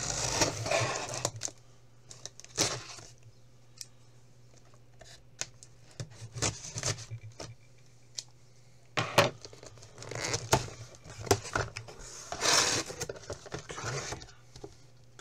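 Cardboard shipping box being opened: scissors cutting through the packing tape, then tape ripping and cardboard flaps scraping as they are pulled open, in irregular bursts. A steady low hum runs underneath.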